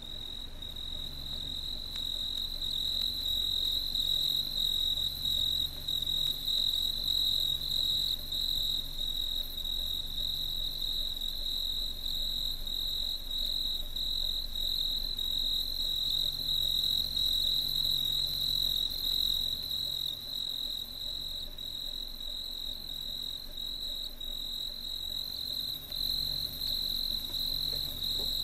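Vinyl record playing through a Luxman 5C50 preamplifier's phono stage: a steady, high, shimmering trill like chirping crickets, which starts abruptly, with a softer low pulsing underneath.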